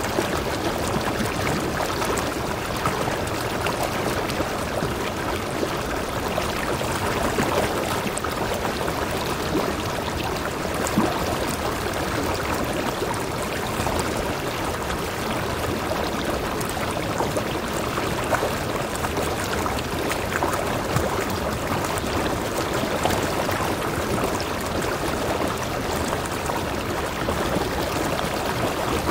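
A small mountain stream pouring over a rock ledge into a pool among boulders: a steady, even noise of running water, with an occasional brief splash standing out.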